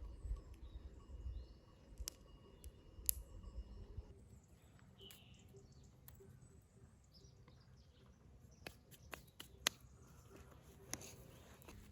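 Faint outdoor ambience: a few short bird chirps, scattered light clicks and knocks, and a low rumble that fades about four seconds in.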